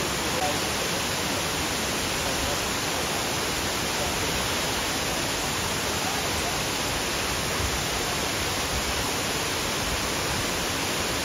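Steady rushing roar of a large waterfall, an even wash of falling water with no single splashes standing out.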